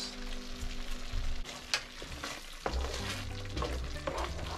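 Tomato sauce sizzling in a frying pan while a wooden spoon stirs it, with repeated short scrapes and taps of the spoon against the pan.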